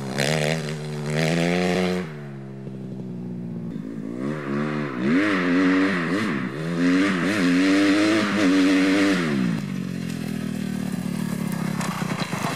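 Kawasaki KX250F four-stroke single-cylinder dirt bike engine through an FMF Megabomb exhaust, revving hard. About two seconds in it drops back off the throttle. It then revs up and down in several quick bursts before settling to a lower, steadier note near the end.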